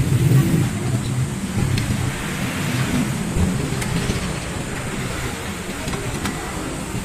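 Steady low workshop rumble with a few faint metallic clicks, about two seconds apart, as a long steel rod and socket tool are worked on the bolts of a scooter's CVT cover.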